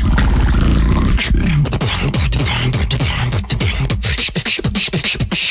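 Beatboxing with a deep, heavily overdriven bass: a held low bass for about the first second, then a fast run of short falling bass sweeps punctuated by sharp mouth clicks.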